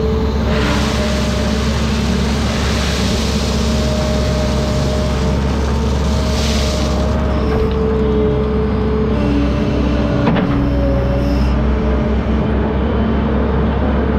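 Diesel engine of a heavy construction machine running steadily under work, with a whine that shifts in pitch. A hiss lasts for several seconds in the first half, and there is a sharp click about ten seconds in.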